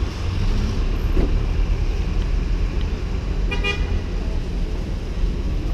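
Steady low rumble of street traffic, with a short car-horn toot about three and a half seconds in.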